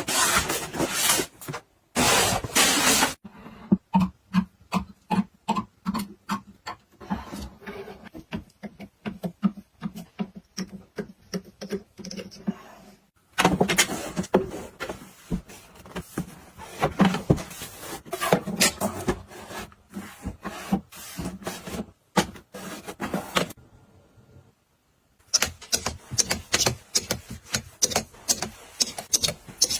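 Rapid clicks, taps and clatters of small household items being handled, set down and arranged while organizing storage, in several short cuts with brief silences between them.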